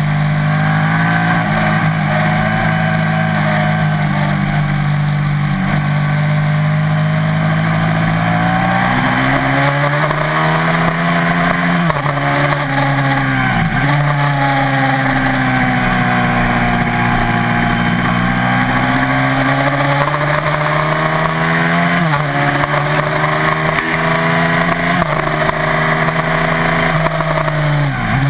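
Onboard sound of a 1987 Ducati TT1 race bike's V-twin engine running hard at high revs. It holds a steady pitch at first, then rises and falls repeatedly as the rider accelerates, closes the throttle and changes gear, with several sharp dips in pitch.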